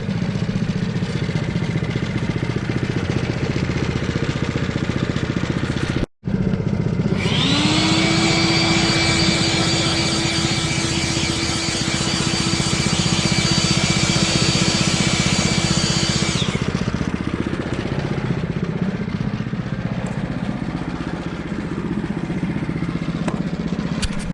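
Wood-Mizer LT10 bandsaw mill's gas engine running steadily. About seven seconds in, a whine rises and holds as the freshly fitted band blade cuts through the log with a bright hiss for about nine seconds, then the cutting stops and the engine runs on.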